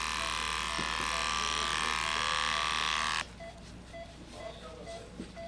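Electric pet clippers buzzing steadily as they shave a dog's belly for surgery, stopping abruptly about three seconds in; after that only soft rubbing of the skin being scrubbed. Short beeps repeat about twice a second throughout.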